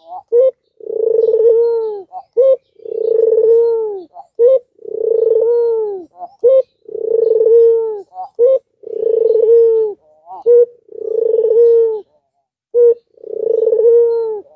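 Albino Barbary dove (ringneck dove) cooing over and over: a short clipped note followed by a long coo, repeated about every two seconds, seven times.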